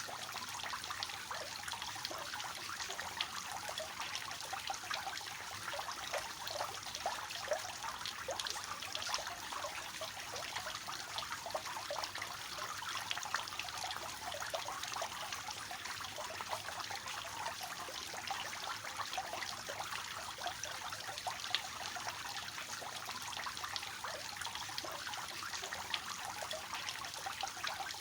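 Water falling steadily from a three-tier cascading fountain, a continuous trickling and splashing with many small droplet ticks.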